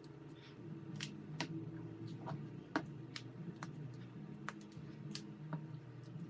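Light, scattered clicks and taps of small repair tools on a phone's parts, about a dozen over several seconds, over a low steady hum.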